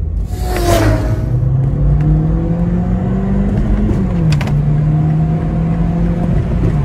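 A MINI's engine under full throttle, heard from inside the car. The engine note climbs steadily, drops at a gear change about four seconds in, then climbs again and starts to drop near the end. A brief rush of noise comes in the first second.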